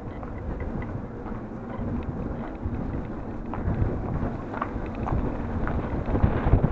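Wind rumbling on the microphone of a camera riding on a moving bicycle, with a few faint light ticks from the bike rolling over the paving.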